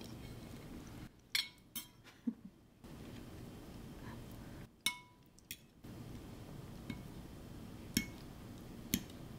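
A metal fork clinking and tapping against a ceramic plate, about seven short ringing clicks spread unevenly, a couple of them close together.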